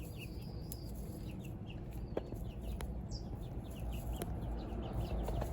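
Young chickens cheeping and clucking in many short repeated calls, with two or three sharp clicks and a steady low rumble underneath.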